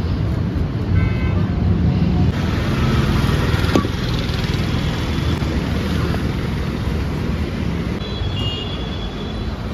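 Roadside traffic noise: a steady rumble of passing vehicles, with a short high tone about a second in and a single sharp clank near the middle.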